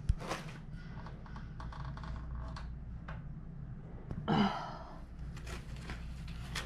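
Rustling, scraping and knocking of foam packing against a cardboard box as the packing is pulled off a boxed machine. There is a sharp knock at the very start and a louder scrape about four seconds in.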